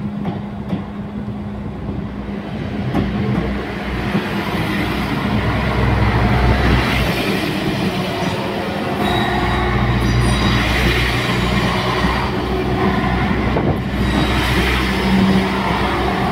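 Translink diesel multiple unit passing at close range, its engine running and its wheels rolling over the rails, with brief high wheel squeals. The sound builds from about four seconds in as the train arrives alongside.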